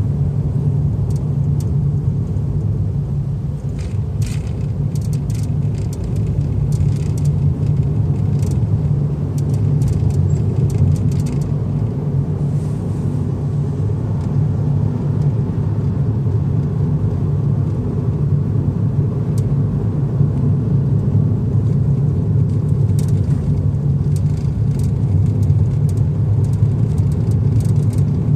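Suzuki Solio Bandit running with a steady low rumble, with scattered short clicks or ticks coming and going over it. This is the abnormal noise (異音) whose cause the owner has not been able to find.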